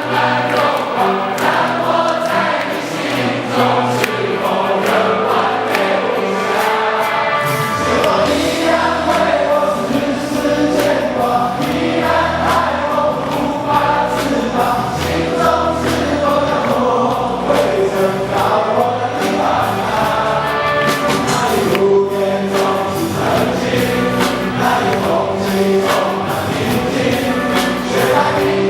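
Live performance of a Mandarin rock ballad: band playing with singing. The bass comes in at about eight seconds.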